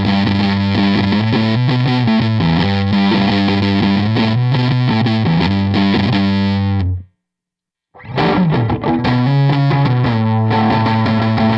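Electric guitar played through a Digitech RP1000 multi-effects pedalboard with a distorted tone. The sound cuts off completely for about a second, some seven seconds in, then the playing starts again.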